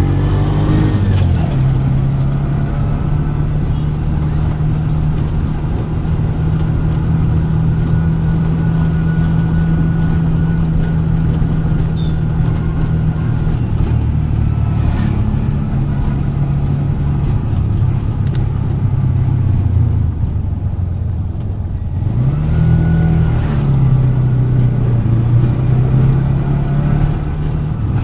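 A road vehicle's engine running on the move, with road and wind noise over it. Its pitch drops about a second in, holds steady, then dips and climbs again about three quarters of the way through as it slows and speeds up.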